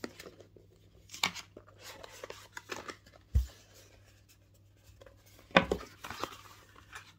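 A cardboard phone presentation box being handled and opened: light rubbing and scraping of card with scattered clicks, a dull thump about three and a half seconds in, and a louder sharp knock a little over five seconds in.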